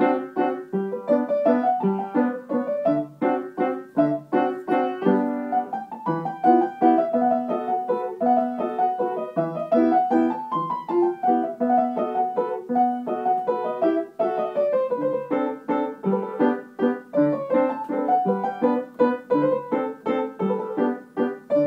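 Piano played with both hands, a continuous tune of quick, separate notes over a lower accompaniment.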